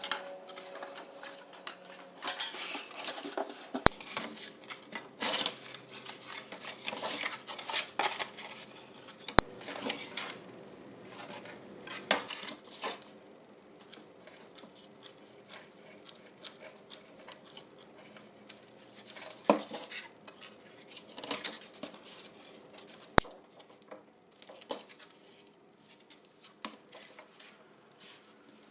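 Craft handling noise as foam plates and tools are picked up, cut with scissors and set down: irregular rustles, scrapes and clicks. These are busier in the first half, with a few sharp taps later on.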